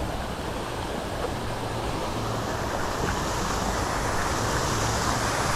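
Steady rush of falling water from a garden waterfall or fountain, an even hiss that grows slightly louder.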